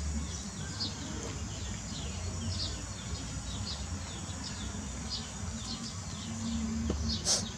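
A bird chirping over and over, short high notes about twice a second, over a steady low rumble, with a sharp click near the end.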